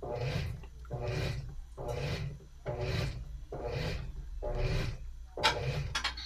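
Washing machine agitator swishing back and forth, about one stroke a second, over the low hum of its motor.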